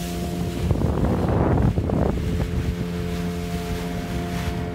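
A small fishing boat's motor running steadily under way, with wind buffeting the microphone and water rushing past the hull; a louder gust of wind noise swamps the engine about a second in for a second or so.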